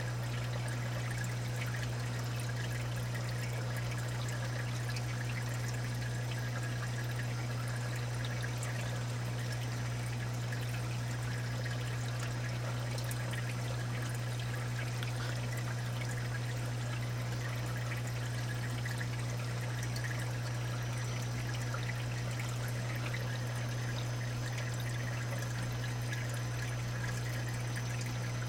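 Steady trickling and pouring of water in a saltwater aquarium's sump and refugium, over a constant low hum.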